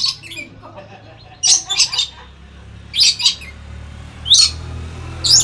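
A pet lory (nuri) giving short, shrill squawking calls, singly and in quick runs of two or three, roughly every second or so.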